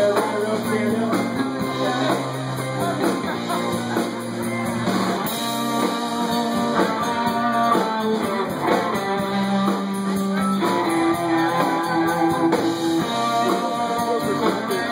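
Live country band playing, led by electric and acoustic guitars strumming and picking, heard through a phone from among the audience.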